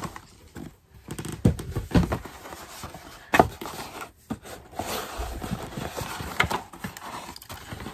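Flat cardboard box being handled, set down and slid on a wooden floor: irregular scraping and rustling with a few sharp knocks, the loudest about three and a half seconds in.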